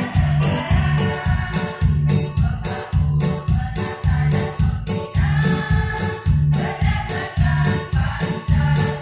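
Choir singing together over a musical accompaniment with a heavy bass and a steady beat.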